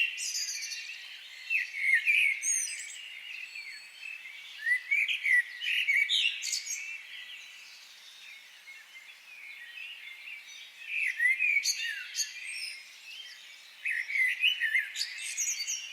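Several birds chirping, many short high calls overlapping in bursts with quieter spells between.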